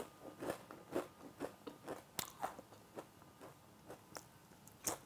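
Person biting and chewing a piece of gonggal-ppang (Korean balloon bread) with a thin, crispy crust: a faint run of sharp crunches, about three a second, thinning out in the last second and a half.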